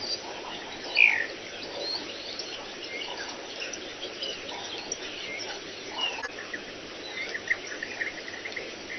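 Outdoor bird chorus: many short chirps and calls from wild birds over a steady insect-and-frog background hum, with one louder, slightly falling chirp about a second in and a quick run of chirps near the end.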